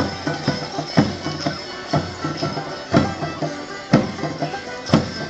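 Live Morris band playing a traditional folk dance tune, with a drum beating a steady pulse, strong strikes about once a second and lighter ones between.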